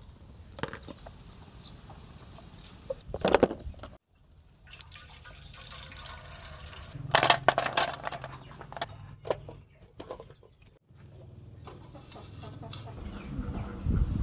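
Water from a garden hose splashing into a plastic basin, then live snails' shells clattering against each other and a metal pot as they are handled. Near the end, a fork scrapes in a bowl of food.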